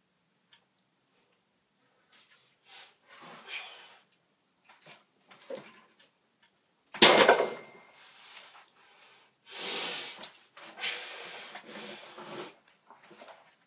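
A man's forceful, hissing breaths and strained exhalations while bench pressing a loaded barbell, coming in irregular bursts. The loudest is a sudden blast of breath about seven seconds in, just after a sharp click.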